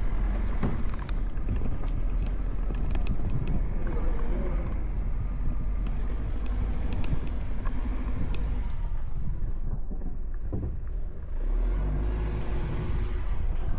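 A vehicle driving: steady engine and road rumble, with some wind noise.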